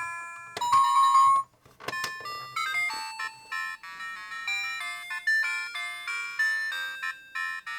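Playgro music maker baby toy playing an electronic chime melody through its small speaker: a few ringing notes, then a quick tune of short notes. It is sounding again now that the speaker's loose magnet has been set back in place.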